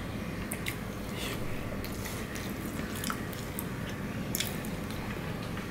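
Close-up mouth sounds of chewing rice and fish curry, with wet lip smacks and a few sharp clicks. Soft squelches come from fingers kneading rice on a steel plate.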